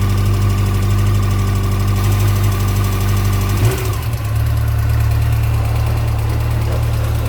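Yamaha FJR1300's inline-four engine running steadily, with a noise the owner wonders may come from the timing chain. About three and a half seconds in the engine note changes abruptly, then runs steady again.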